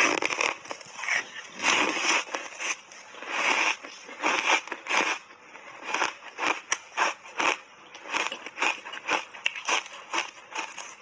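Crushed ice coated in matcha powder being bitten and chewed close to a clip-on microphone: a loud crunching bite at the start, then short crunches several times a second as the ice is chewed.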